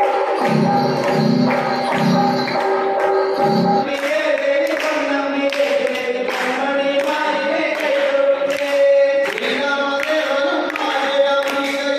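Festive music: a pulsing low beat with percussion, then about four seconds in the beat drops out and a group of voices sings over steady percussion strokes.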